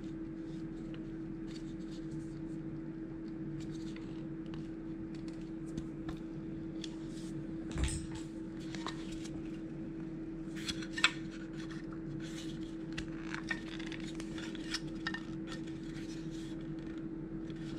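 Scattered small clicks and clatters of hex keys and a clear plastic wheel frame being handled while a wheel is changed, with a louder knock about eight seconds in and a sharp click about three seconds later, over a steady faint hum.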